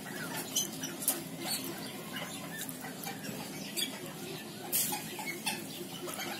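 Bantam chickens foraging over dry fallen leaves: scattered rustles and scratching clicks, the loudest near the end, with a few short high chirps.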